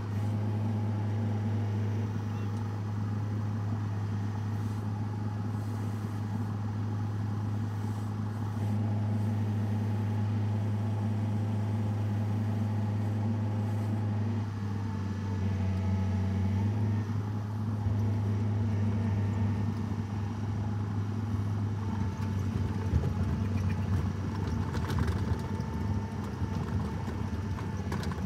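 Engine running steadily, a low drone that shifts slightly in pitch about halfway through.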